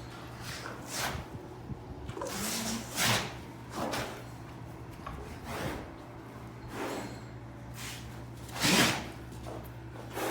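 A cow scuffing and tossing loose sawdust: a string of rough swishes about once a second, the loudest about nine seconds in, over a steady low hum.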